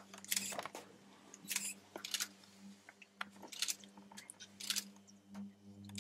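Irregular clicks, crackles and rustles, several a second, over a steady low hum.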